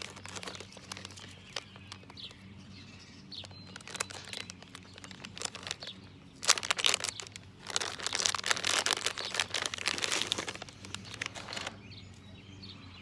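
Plastic wrapping crinkling and rustling as a small item is unwrapped by hand, with scattered light clicks and handling noises; the crinkling is densest from about six and a half to ten and a half seconds in.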